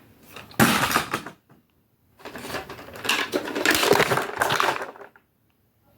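Crunchy rustling and rattling of plastic being handled, in two stretches: a short one about half a second in, then a longer one of about three seconds starting two seconds in.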